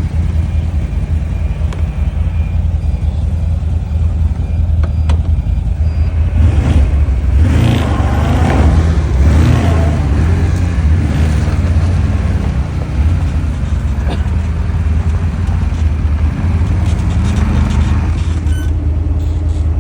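A motor vehicle engine running with a heavy low rumble, building up and revving harder for several seconds in the middle before settling back.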